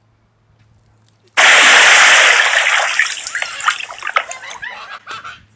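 A tub of water dumped over a person: a sudden loud splash about a second and a half in, then pouring and splattering that slowly dies away over about three seconds.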